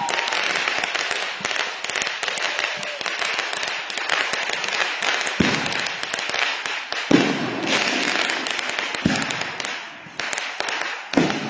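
Consumer-grade aerial repeater fireworks firing: a dense, continuous crackling, with several louder single bangs spaced a second or two apart in the second half.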